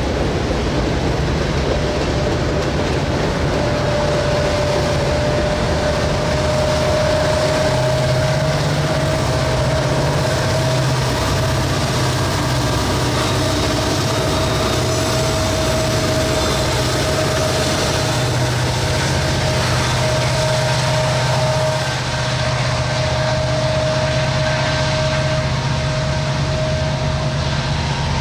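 Train running on the line: a steady low diesel-locomotive rumble with a continuous whine on top.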